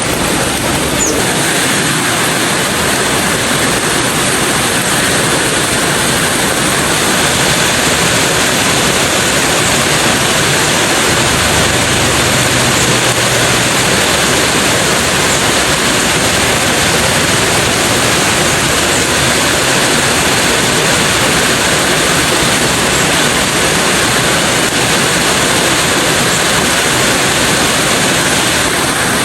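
Heavy rain pouring down, a loud steady hiss with no breaks.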